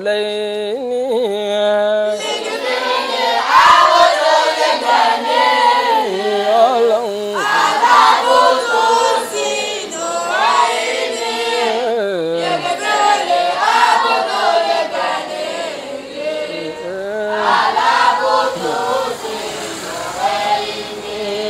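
A choir of young boys' and girls' voices singing an Arabic elegy in unison; a single voice carries the first line and the group joins about two seconds in.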